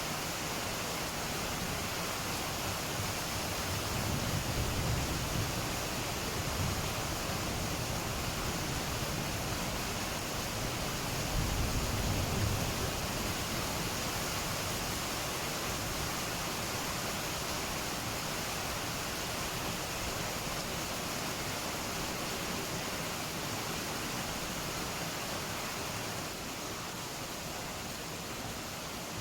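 Steady rain falling, an even hiss. Low rumbles of thunder swell up twice, about four and about eleven seconds in.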